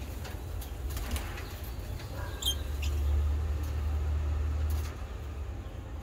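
Budgerigars in an aviary: a few short high chirps, near the start and again about two and a half seconds in, with wing flutter as birds shift perches. Under them runs a low rumble, loudest from about two and a half to five seconds in.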